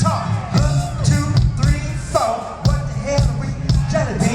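Live funk band playing, with a steady drum-kit beat and heavy bass under a lead line, heard through a concert PA system.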